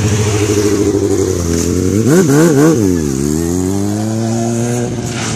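Motorcycle engine revving under a stunt rider's throttle: three quick blips about two seconds in, then the pitch drops and climbs slowly again before easing off near the end.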